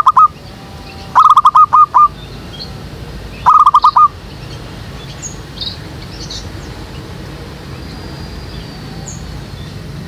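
Zebra dove cooing, loud and close: three short bursts of rapid, evenly spaced coos in the first four seconds. After that only faint high chirps of small birds remain.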